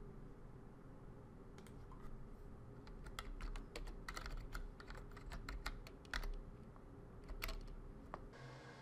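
Computer keyboard keys clicking as a short command is typed: an uneven run of keystrokes starting about a second and a half in and ending a little before the end, over a steady low hum.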